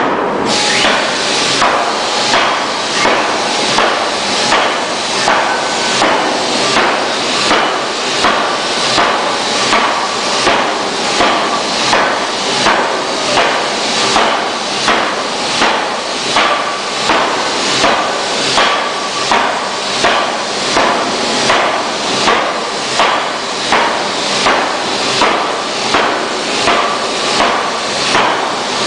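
A C41-2000kg pneumatic forging hammer pounding a red-hot steel flange blank on its anvil: a steady run of loud ram blows, a little over one a second, starting about half a second in.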